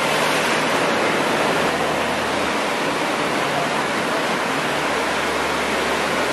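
Steady, even rushing noise with no separate events in it.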